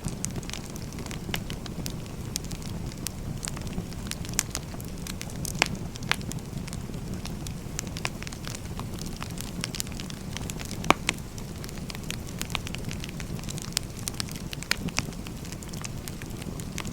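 Wood fire burning: a steady low rush with irregular sharp crackles and pops, one louder pop about eleven seconds in.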